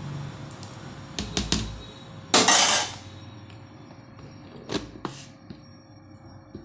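Kitchenware handling on a serving casserole of dal: a steel ladle and the casserole's glass lid knocking against it. A few sharp knocks, then a loud scraping clatter about half a second long, then two more knocks as the lid is set on.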